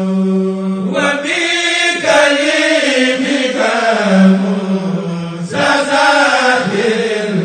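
Chanted Arabic religious poem (a Mouride khassida). A long held note at the start gives way, about a second in, to a melody that rises and falls.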